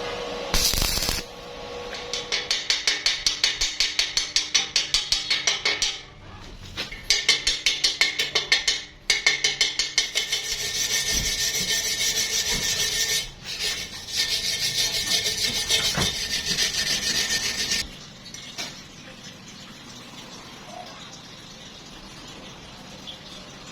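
A hand tool rasping on metal in quick back-and-forth strokes, about three to four a second, in several runs with short pauses between them; the strokes stop near the end, leaving a quieter background.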